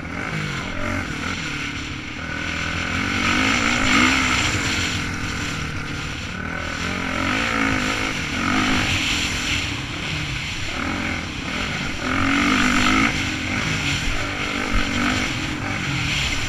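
Motocross bike engine heard from onboard the bike, revving up and falling back again and again as the rider accelerates and eases off along the dirt track.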